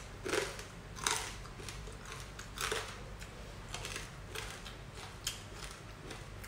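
Close-up chewing and crunching of crispy fried pork belly (pork kawali) eaten by hand, with a few sharp crunches in the first three seconds and softer chewing after.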